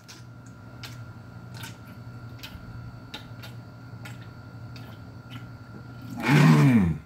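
A man gulping water from a large glass jar, a swallow about every three-quarters of a second. Near the end he lets out a loud 'ahh' of breath that falls in pitch as he stops drinking.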